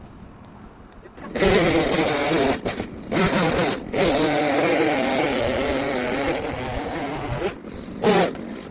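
Two-stroke chainsaw running at high revs, as in cutting. It starts about a second in, drops off briefly a few times, then eases off near the end with one short rev.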